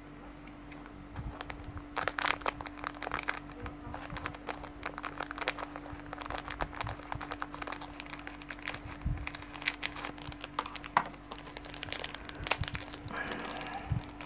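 Clear plastic bag holding small light bulbs being handled and opened: a long, irregular run of quick plastic crinkles and crackles.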